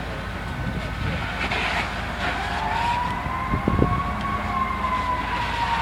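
Emergency vehicle siren wailing: one long tone that starts about two seconds in, rises slowly, then slowly falls, over steady background noise.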